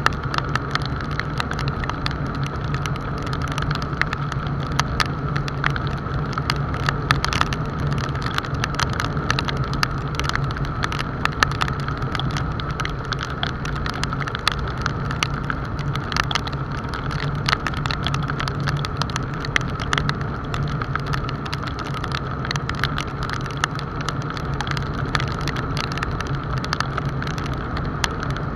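Honda motorcycle engine running steadily at cruising speed on a wet road, with wind and road noise and scattered raindrops ticking against the action camera.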